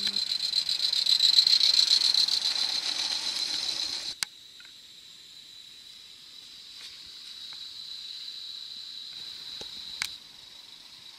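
Gauge 1 live-steam KPEV T3 tank locomotive running close by with a goods train: steam hissing and wheels rattling on the track, louder for a couple of seconds and then cut off abruptly about four seconds in. After that, a much fainter hiss with a steady high whine, and a click near the end.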